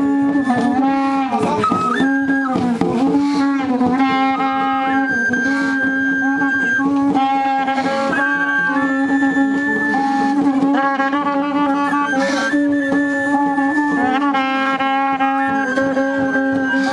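Traditional Betammaribe wind instruments, antelope horns and flutes, blown together in overlapping held notes over a steady low drone, with short slides between notes.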